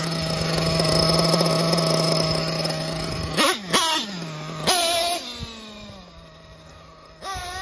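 Picco nitro engine in a Kyosho Inferno MP10T nitro truggy being run in: a steady high-pitched note for about three seconds, then two sharp revs, then a lower note fading as the truck moves away, and a rise again near the end. The driver finds it running a bit lean at the bottom end.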